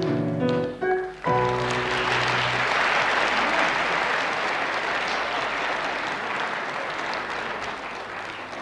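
A musical number ends on a short held final chord about a second in, and audience applause starts over it and carries on, slowly dying down.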